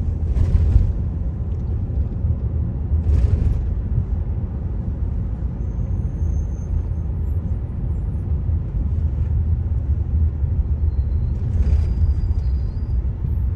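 Steady low road rumble from a car on the move, with three short swells of hiss that rise and fall.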